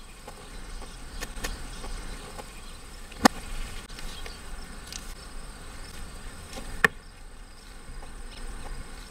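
Insects buzzing in a steady high drone, with two sharp clicks about three and a half seconds apart.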